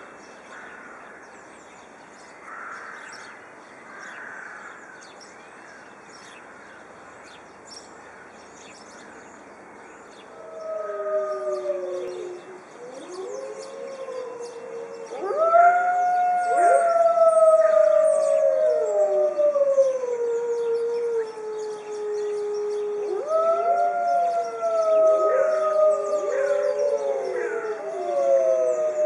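A pack of Arctic wolves howling in chorus, several voices overlapping in long howls that rise and fall in pitch. It is faint at first and swells to a full chorus about ten seconds in.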